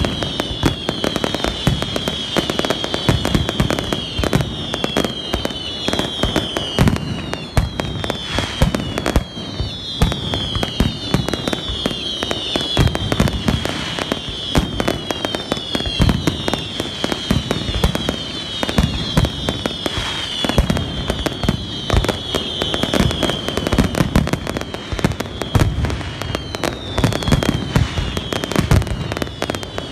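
Pirotecnia Ferrández aerial fireworks display: shells launching and bursting in rapid, continuous succession, a steady barrage of bangs and crackling, with repeated whistles that fall in pitch.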